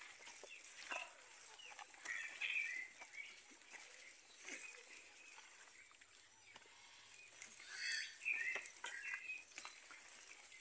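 Faint wet squishing and scraping of hands kneading soft tamal masa in a plastic tub, with short animal calls twice, about two seconds in and near eight seconds.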